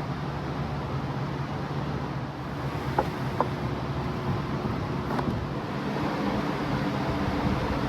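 A steady mechanical hum, with a few short clicks or knocks around the middle.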